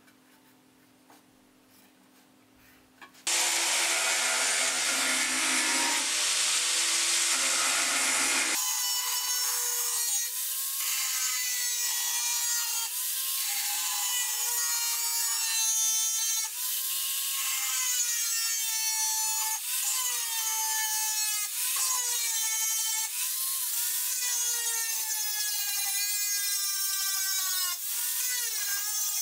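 Faint ticks of a marker on the steel blade, then a Makita angle grinder with a cut-off disc starts cutting through the steel table saw blade about three seconds in. Its high whine keeps dipping in pitch and recovering as the disc bites into the steel.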